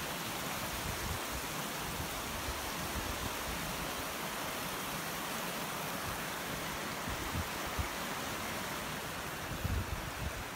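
Creek water rushing over rocks, a steady even rush with a couple of soft low thumps near the end.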